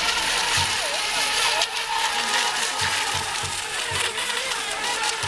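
Several radio-controlled model racing boats running on the water, their motors giving a steady high hiss and whine whose pitch wavers as they pass.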